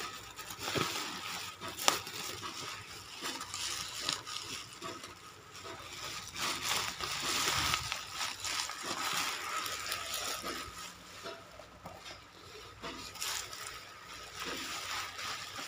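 Thick plastic bubble wrap crinkling and rustling as hands pull it open to unwrap a parcel, with scattered sharp crackles throughout.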